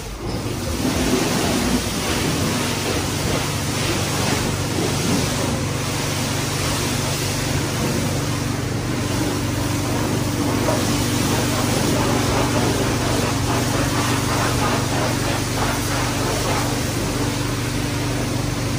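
Carwash machinery running steadily: a low, even hum under a broad hiss.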